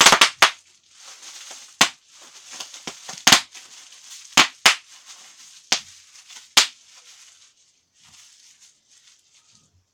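Bubble wrap being popped by hand: about nine sharp pops at irregular intervals, with the plastic crinkling between them. The pops stop about seven seconds in.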